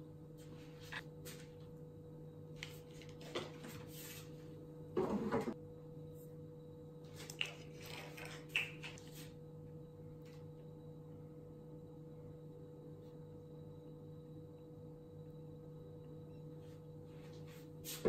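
Small kitchen handling sounds while a sesame-paste dipping sauce is made in an enamel bowl: a few light knocks and rustles of jars, a bottle and utensils, the loudest about five seconds in, over a steady low hum.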